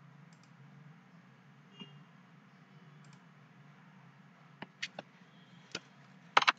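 Faint steady low hum, then a few sharp computer mouse clicks from a little past halfway, several in quick succession near the end.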